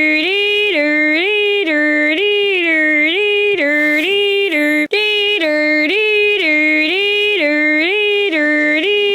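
Fire alarm sounding: a loud two-tone wail that swings up and down between a low and a high pitch about once a second, with a momentary break about five seconds in where it starts over.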